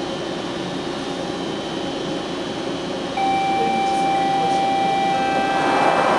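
Stationary ICTS rapid-transit car with its ventilation humming steadily. A steady electronic door-warning tone comes on about three seconds in, and the sliding doors start to close near the end.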